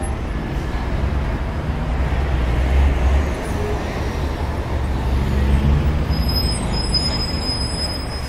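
Steady low rumble of a passenger van's engine and road noise, with a hiss from the tyres, heard inside the moving van's cabin.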